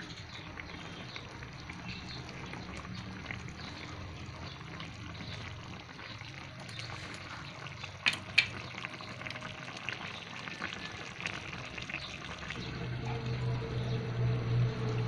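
Chicken adobo bubbling as it simmers in its soy-vinegar sauce in a wide metal pan. Two sharp metal clinks come about halfway through, and a low steady hum joins near the end.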